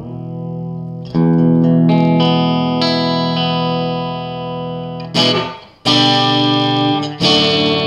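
Electric guitar on its middle pickup through a Marshall Lead 12 solid-state amp and mini stack. One chord rings on, a new one is struck about a second in and held for several seconds, then three more chords are strummed near the end.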